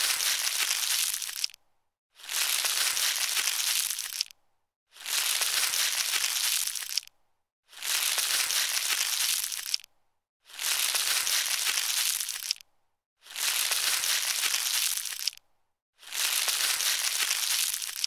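Plastic bag rustling in seven bursts of about two seconds, each stopping abruptly, with short silences between.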